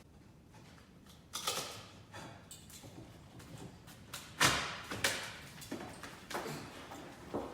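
Several irregular knocks and thumps, the loudest about four and a half seconds in.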